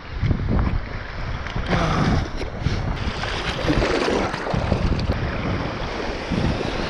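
Wind buffeting the camera microphone in a heavy rumble, with sea water splashing and sloshing around the kiteboard in choppy water; the splashing surges about two seconds in and again around four seconds in.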